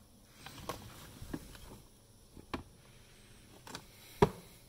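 Gear being lifted and shifted about inside a tack trunk: scattered light clicks, knocks and rustles, with one sharper knock about four seconds in.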